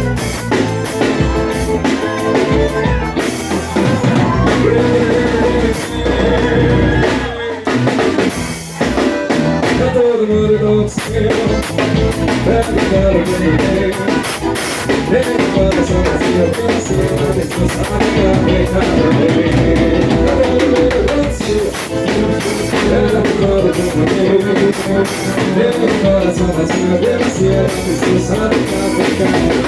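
Forró band music with a steady drum kit beat.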